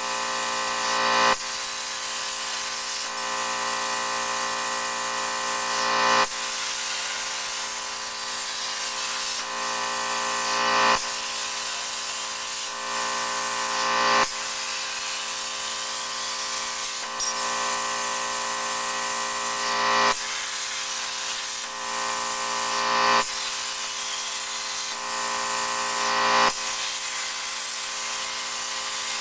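Plasma CNC cutting machine at work on steel plate: a steady whining hiss with a machine hum underneath. It swells every three to four seconds and drops back suddenly each time.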